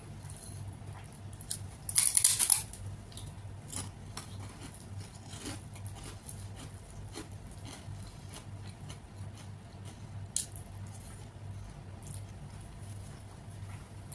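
Close-miked eating by hand: fingers mixing rice with rajma curry, with soft chewing and lip smacks. One loud, short crunch comes about two seconds in, and a sharp click near ten seconds. A steady low hum runs underneath.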